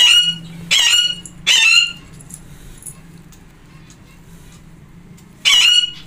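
Female Alexandrine parakeet screeching in the hand, giving three harsh squawks in the first two seconds and one more near the end. She is egg-bound, and the calls come as the stuck egg is eased out.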